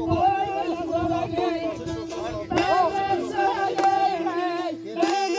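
Azerbaijani folk music: an ornamented, wavering melody over a steady held drone note.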